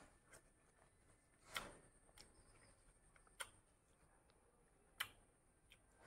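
Near silence, broken by about six short, faint wet clicks and smacks from eating and handling soft ripe mango pulp.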